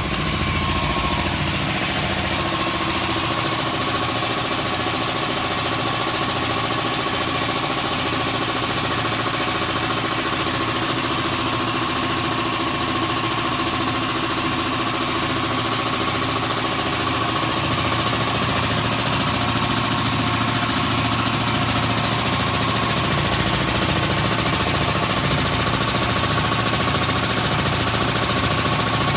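HUGO MAX two-stage, belt-driven air compressor running, its 4 hp single-phase electric motor driving the pump. It gives a steady whine over a rhythmic low throb.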